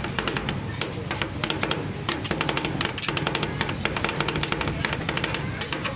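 Two metal spatulas chopping and tapping the ice cream mixture against the steel plate of a rolled ice cream freezing pan: a fast, uneven clatter of metal clicks, many a second.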